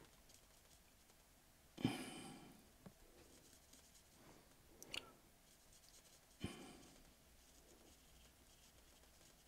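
Near silence, with the faint scratch of a small paintbrush working paint onto canvas. Two brief, sudden sounds come about two seconds and six and a half seconds in, each dying away over about half a second, with a short tick between them.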